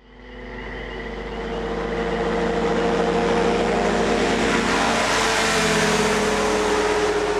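Engines and propellers of two weight-shift microlight trikes at full power on take-off, passing close by. The sound swells up over the first few seconds and then holds steady, its pitch dropping slightly as they go past.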